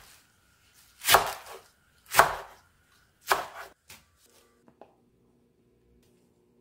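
Kitchen knife slicing through a bunch of garlic chives onto a wooden cutting board: three crunchy cuts about a second apart, followed by a few faint clicks.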